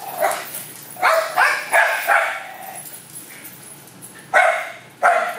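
Dogs barking and yipping during rough play, a quick run of short barks, a pause, then more barks near the end.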